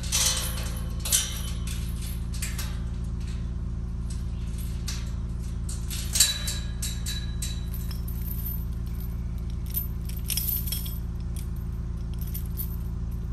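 Steady low drone of a Ford Bronco's cabin on the move, with light metallic jingles and clinks now and then, the sharpest about six seconds in.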